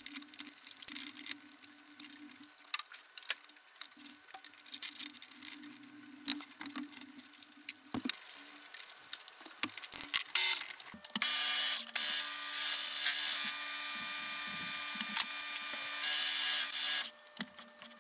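Metal clicks and knocks of a lathe chuck being handled and fitted to the spindle. About eleven seconds in, the gear-head metal lathe runs steadily with a machine whine for about six seconds, then stops.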